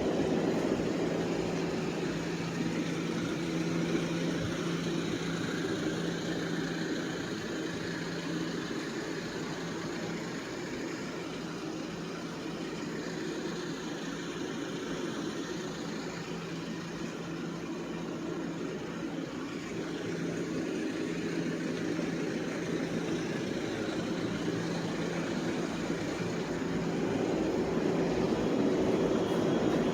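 Street traffic: a motor vehicle's engine runs with a steady low hum over general city noise, and the sound swells near the end.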